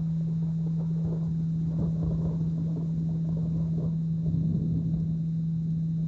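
A steady low hum at 165 Hz, the carrier tone of a delta binaural beat, over a recording of rain with a low, uneven rumble beneath it.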